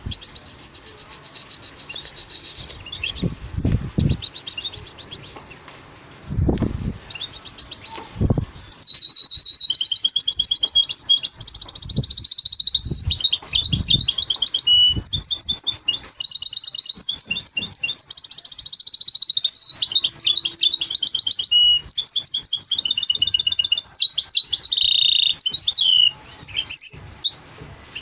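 Caged goldfinch × canary hybrid (mule) singing. A short trill at the start leads, about eight seconds in, into a long, nearly continuous song of fast high trills and twittering phrases. A few low thumps come in the first eight seconds.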